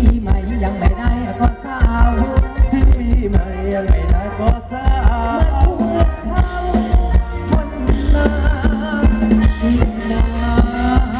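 Live ramwong dance music from a Thai band: a steady beat of heavy bass-drum thumps under a melody line.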